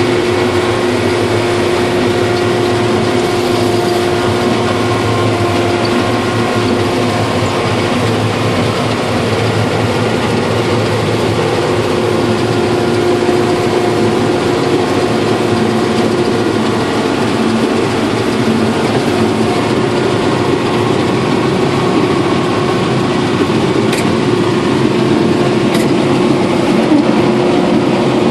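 Harvester running steadily: its engine and machinery make a continuous loud drone with a steady hum through it.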